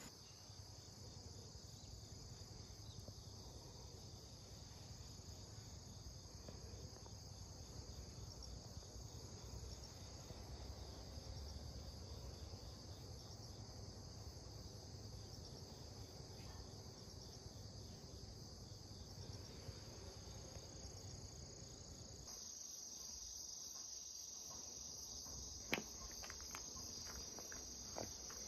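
Crickets trilling steadily in a continuous high chorus. A low rumble underneath stops abruptly about three-quarters of the way through, and two sharp clicks come near the end.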